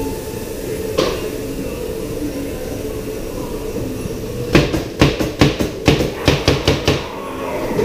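Dark ride car rolling along its track with a steady rumble, a single knock about a second in, then a quick run of about a dozen sharp knocks over two and a half seconds.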